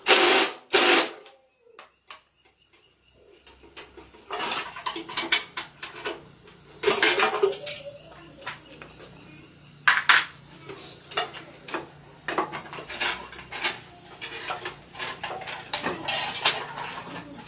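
Metal tools and parts clinking and knocking, with a few louder scraping bursts among many light clicks.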